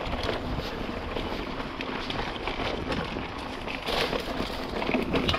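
Wind buffeting the microphone of a mountain bike rider's camera, over a steady rush of tyre and trail noise with scattered small knocks and rattles.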